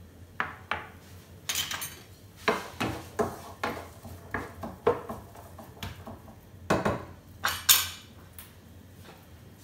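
Kitchen utensil clatter: a wooden spoon stirring and knocking against a nonstick frying pan of chopped onions, a bowl set down on the counter, and spoons laid on a plastic spoon rest. Irregular knocks and clinks, the loudest about three-quarters of the way through.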